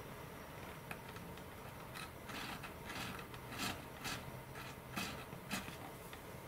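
Faint scraping and light clicking of a thin wire applicator working epoxy into a fuselage's servo tray opening, in short irregular strokes.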